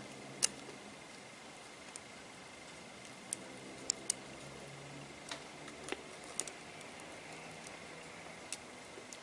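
Scattered light clicks and ticks, about a dozen, from fingertips working the iPhone 6's flex-cable press-fit connectors as they are lined up and pressed onto the logic board.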